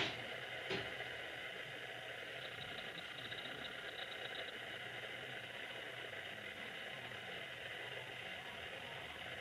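Steady equipment hum inside a JR West 221 series electric train, with two sharp clicks right at the start and a short run of fast, high ticks about two and a half to four and a half seconds in.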